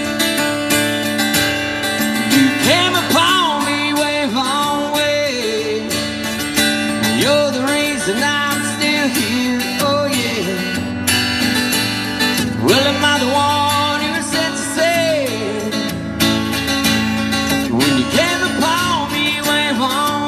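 Acoustic guitar strummed steadily under a man's slow sung melody, which comes in phrases of a few seconds with gliding, held notes and no clear words.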